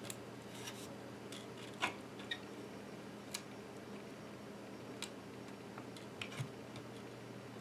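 Scattered small clicks and light scrapes from handling the internal parts of an iBook G4 laptop during disassembly, a few seconds apart, over a steady low hum.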